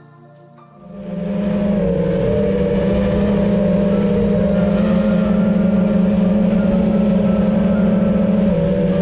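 Motors and propellers of a 5-inch FPV quadcopter, heard from its onboard camera: a loud, steady whine that comes in about a second in and holds a nearly constant pitch, wavering slightly as the throttle shifts.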